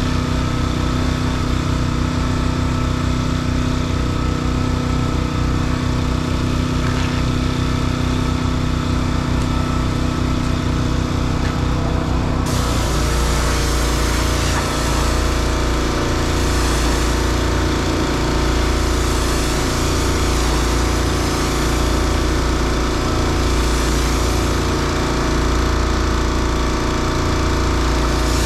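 An engine running steadily. About twelve seconds in, the sound changes abruptly: a strong hiss joins it, and the low rumble grows stronger and pulses unevenly.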